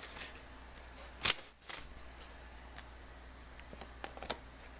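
Trading cards being handled, giving a few faint clicks and taps, the sharpest about a second in, over a low steady hum.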